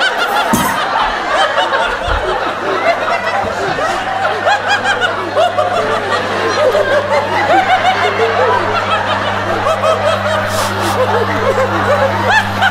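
Dense, overlapping laughter and snickering, layered so that the laughs run together without a break. A low, steady droning hum comes in around the middle and grows louder toward the end.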